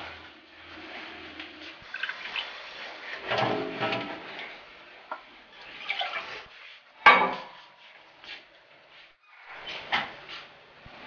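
Water running from a kitchen tap into a metal sink, with dishes clattering, and one sharp clank about seven seconds in.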